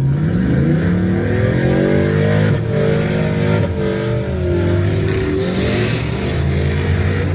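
Truck engine revving hard under load during a strap recovery pull: the revs climb over the first two seconds, then hold high with a few brief dips.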